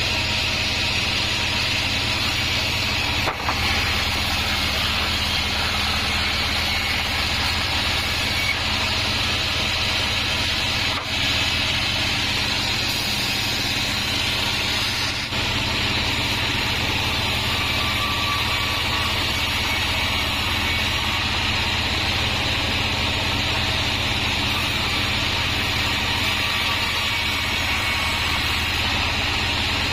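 Band sawmill running steadily as its blade cuts through mahogany: a low motor hum under an even hiss of the blade in the wood.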